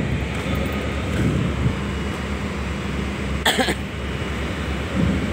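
Steady low machinery rumble with a faint hum. A short, loud, cough-like burst comes about three and a half seconds in.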